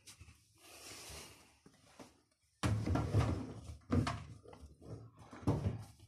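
Blankets being stuffed by hand into the open drum of a front-loading washing machine: soft fabric rustling, then from about two and a half seconds in a sudden louder stretch of rustling and swishing with several dull thumps.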